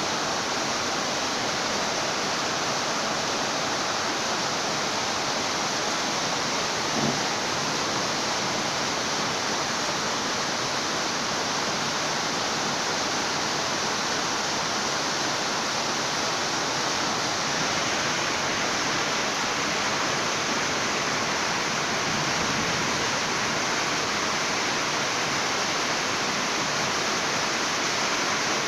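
Steady heavy rain falling, an even unbroken hiss with one brief tap about seven seconds in.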